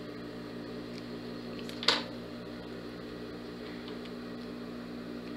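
Steady low electrical hum, with one sharp scissors snip about two seconds in as a notch is cut into the curved seam allowance so the fabric can turn cleanly.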